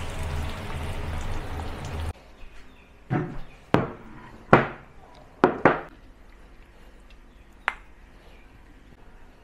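For about two seconds there is a steady hiss from the hot wok and stove as the stir-fry is scraped out into a serving bowl. Then it cuts to a handful of sharp knocks and clinks as ceramic bowls are set down on a wooden table and handled.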